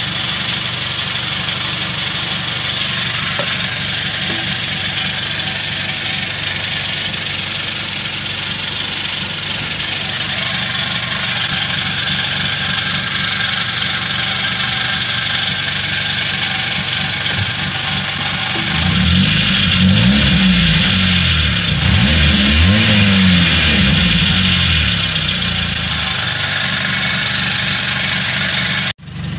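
Renault Mégane Coupé engine idling, heard from under the car through an exhaust whose flex pipe and resonator are broken and leaking. About two-thirds of the way through it is revved several times, the pitch rising and falling with each blip, then it settles back to idle.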